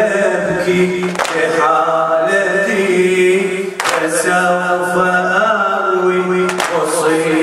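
A male reciter chants a Muharram latmiya lament over a microphone with a sustained, drawn-out melody. The mourners strike their chests in unison three times, about two and a half seconds apart, keeping the beat of the lament.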